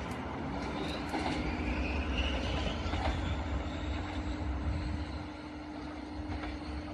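JNR Class DE10 diesel-hydraulic locomotive running light as it moves away, its engine giving a steady drone with a held low tone. A few wheel clicks over rail joints come through.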